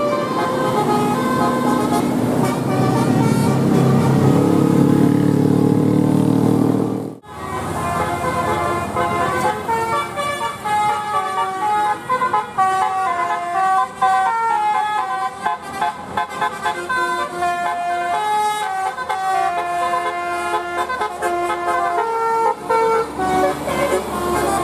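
Indonesian 'telolet' bus horns, multi-trumpet air horns sounding quick tunes, note after note. The sound drops out briefly about seven seconds in, then another horn tune follows.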